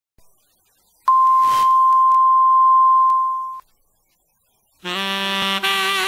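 A loud, steady, pure test tone held for about two and a half seconds, cutting off abruptly. About a second later instrumental music begins.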